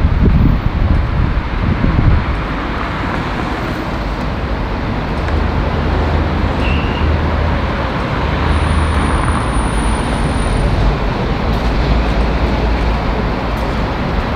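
Steady street traffic noise, a continuous rumble of passing vehicles, with a thin high whistle for a couple of seconds past the middle.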